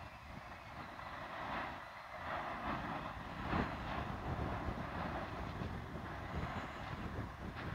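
Lava fountaining and spattering from an erupting volcanic crater: a steady rumbling rush with irregular louder surges, the strongest about three and a half seconds in.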